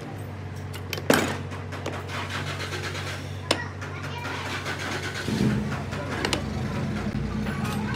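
Sharp metallic clicks of pliers and loose parts on a car alternator being taken apart, the loudest about a second in and another about three and a half seconds in, over a steady low engine hum that gets fuller about five seconds in.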